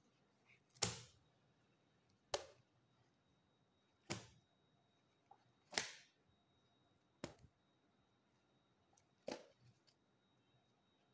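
Stiff pages of a wallpaper sample book being turned one by one, each landing with a short, sharp flap; six page turns, one every one and a half to two seconds.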